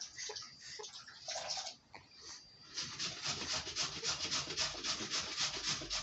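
Two-month-old baby making wet bubbling mouth sounds, a rapid spluttering run of about six strokes a second starting about three seconds in, after a soft brief coo.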